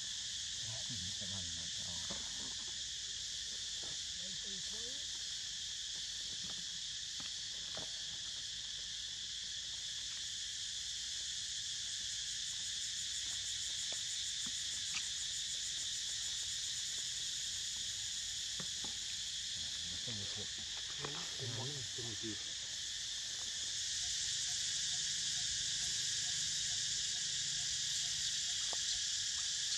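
Steady high-pitched chorus of insects, an even buzzing shrill that grows louder about 24 seconds in. A few faint low vocal sounds come through near the start and again about 20 seconds in.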